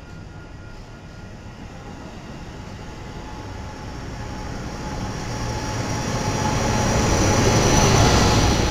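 Bilevel passenger train passing at speed, its coaches running over the rails. The sound builds steadily and peaks near the end as the diesel locomotive at the rear of the train goes by, with a steady high whine over the rumble.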